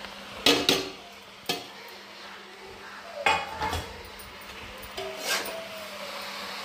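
Steel ladle clinking and scraping against a metal kadhai as chopped mushrooms are tipped in from a steel bowl and stirred, with a handful of sharp, irregular clinks.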